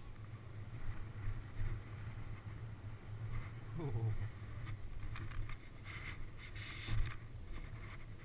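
Snowboard riding down through deep powder snow: a low rushing rumble of the board in the snow and air buffeting the helmet-mounted camera's microphone, with louder hissing spells in the second half.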